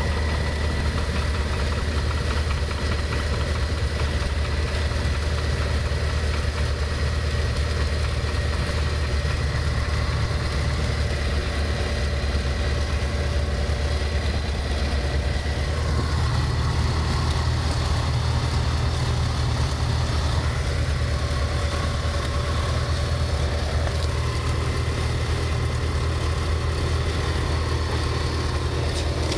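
Light aircraft's piston engine and propeller running steadily, heard from inside the cockpit as a deep, even drone.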